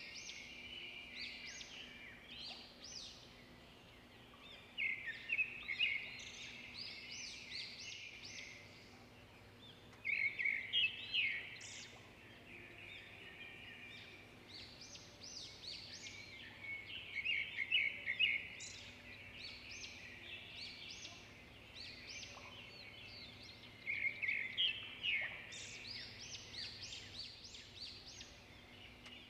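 Small birds chirping and twittering in quick bunches every few seconds, over a faint steady hum.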